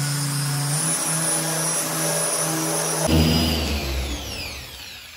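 Dual-action orbital polisher running steadily as it cuts compound into car paint. About three seconds in it is switched off and its motor winds down with a falling whine that fades away, marking the end of the first compounding pass.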